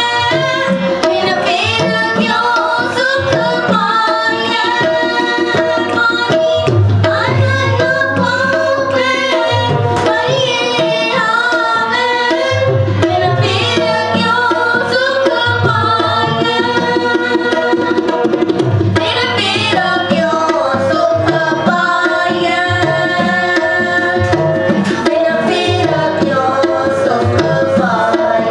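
Harmonium playing a devotional song, with a singing voice gliding over the held reed tones and a steady hand-drum rhythm of deep low strokes underneath.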